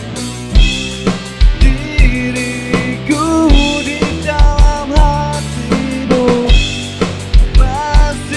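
Rock band playing live with no singing: an electric guitar plays a melody with bent notes over a bass guitar and a drum kit with a steady kick-drum beat.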